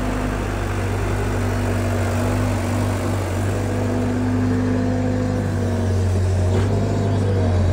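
Iveco diesel engine of a tracked digger derrick running steadily, a low even hum.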